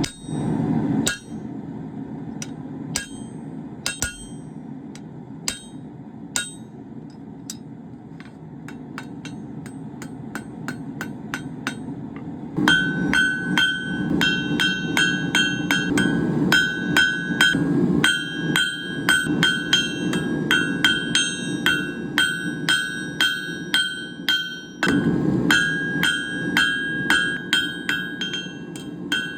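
Blacksmith's hammer striking hot 3/8-inch round steel on an anvil over a steady rushing noise. The first blows are light and spaced out; about halfway in they come in fast runs with a clear ringing tone between strikes, pausing briefly near the end.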